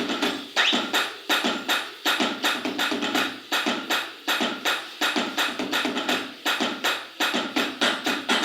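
Roland SPD-20 Pro electronic percussion pad played with a self-made patch: a quick, continuous rhythm of sharp percussive hits.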